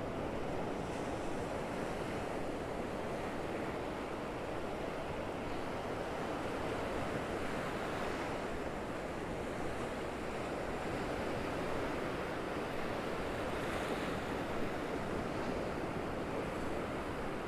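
Small waves of the Gulf of Mexico surf washing onto a sandy beach in a steady rush, with light wind buffeting the microphone.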